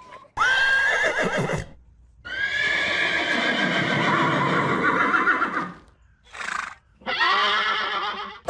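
Horse whinnying in several calls: a call of about a second and a half, then a long quavering whinny lasting about three and a half seconds, a short breathy sound, and another whinny near the end.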